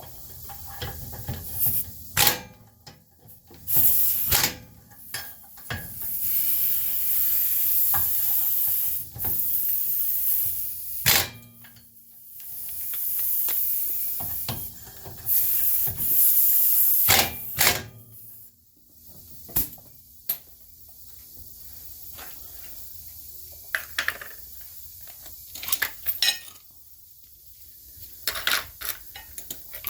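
Impact wrench running in several bursts of a second or more, spinning the hub retaining bolts off a car's rear hub. Sharp metal clicks and clinks of bolts and tools come in between, and in the second half only these clicks are left.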